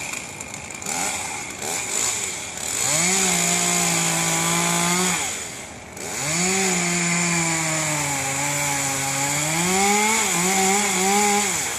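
Gas chainsaw revved to full throttle in two long runs, one of about two seconds and one of about five, with a short let-off between them. During the second run its pitch sags and comes back up, as a saw does under load while cutting wood.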